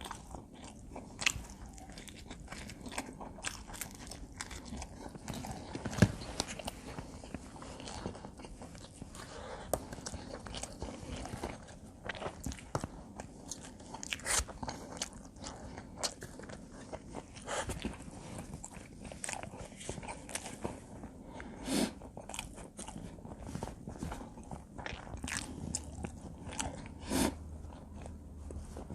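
A person chewing and biting combination pizza, with many irregular sharp crunches and clicks; a few louder crunches stand out along the way.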